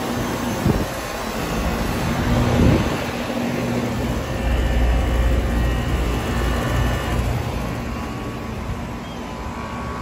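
Outdoor air-conditioner condenser units running: a steady fan whoosh over a low compressor hum, with a couple of low thumps in the first few seconds.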